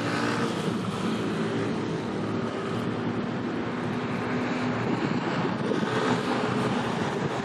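Steady low engine drone of a passing general cargo ship, under wind rushing on the microphone.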